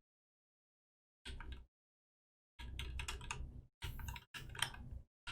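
Computer keyboard and mouse clicks in a few short bursts, with dead silence between them.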